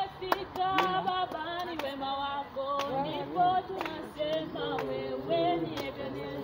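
A group of people singing unaccompanied, with women's voices to the fore.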